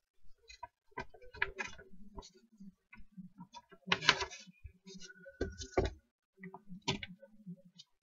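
Irregular light clicks and taps from a sheet of paper and small plastic figurines being handled. The loudest come about four seconds in and again around six and seven seconds in.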